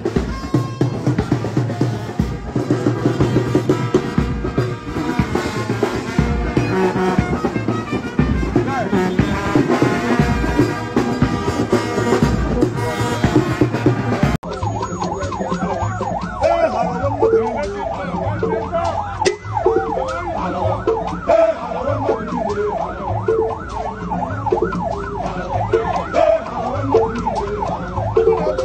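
Lively band music with a steady beat. After an abrupt cut about halfway through, a siren wails in quickly wavering sweeps.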